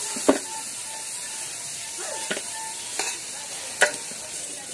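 Potato wedges sizzling in hot oil in an aluminium kadai as they are lifted out, with a metal spatula clinking sharply against the pan about four times.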